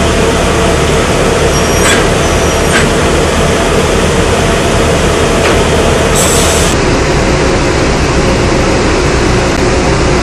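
Loud, steady drone of drilling-rig machinery on an offshore rig's drill floor, with a low hum and a held mid tone. A few sharp metallic clanks sound in the first half, and a short hiss comes about six seconds in.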